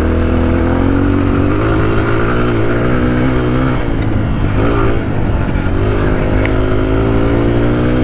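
Dirt bike engine running steadily under throttle while riding, with a brief dip in engine note about five seconds in before it picks up again.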